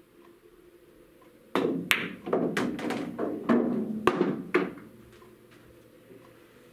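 Pool shot on a coin-operated table: the cue tip strikes the cue ball, then the balls click together and the object ball drops into the pocket and rolls through the table's ball return. It comes as a sudden run of sharp knocks and clatter lasting about three seconds.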